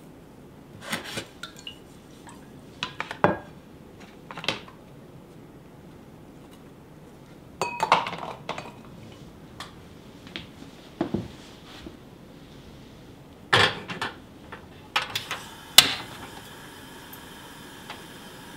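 Scattered clinks and knocks of a hammered aluminium saucepan and a plastic container being handled as ingredients go in. Near the end the pan is set on a tabletop cassette gas stove, and a steady hiss of the lit burner follows.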